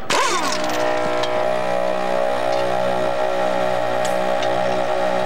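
ARB twin-motor portable air compressor running steadily, its two motors giving a steady multi-tone hum with a slow regular throb. Right at the start a short falling whine as the half-inch air impact gun spins down.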